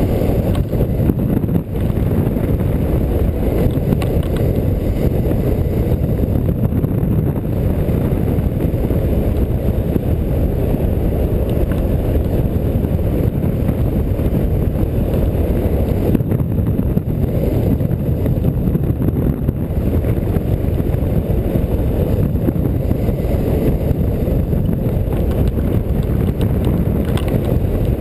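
Airflow buffeting the microphone of a camera mounted on a hang glider in flight: a loud, steady low rumble of wind noise that holds even throughout.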